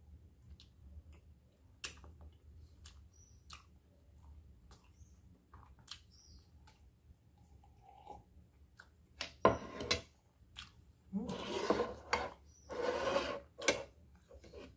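Close-up mouth sounds of eating and drinking: scattered faint smacks and clicks of chewing, then a sharp sip and two longer, loud slurps of milky coffee from a mug near the end.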